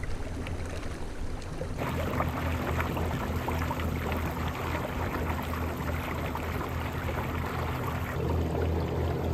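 Steady rush and splash of water around a fishing kayak, over a low steady hum; the water sound gets louder about two seconds in.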